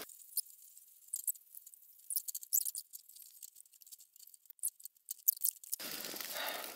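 Sikaflex adhesive being run out of a caulking gun, sped up: scattered faint clicks and ticks with only a thin, high sound and no low end. About five seconds in, a steady fuller hiss of the room comes in.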